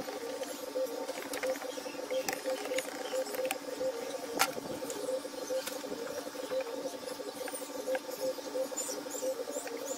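Hand screwdriver turning screws into a wooden speaker baffle: scattered small clicks and scrapes, with one sharper click about four and a half seconds in. A steady, pulsing chirp runs underneath.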